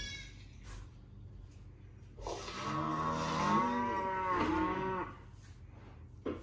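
A cow mooing once: a single long call of about three seconds, starting about two seconds in. It is a recorded animal sound played back.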